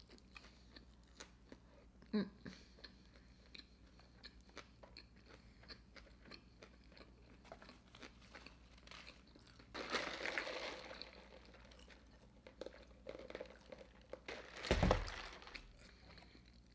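Soft close-up chewing of a Big Mac, with many small wet mouth clicks. A short rustle comes about ten seconds in, and a single loud thump near the end.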